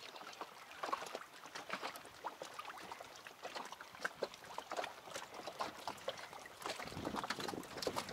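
Water lapping and trickling: many quick, irregular little splashes, with some wind on the microphone near the end.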